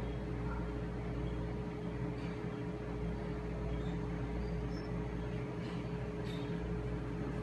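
Steady machine hum with a constant mid-pitched tone over a low rumble, running evenly throughout.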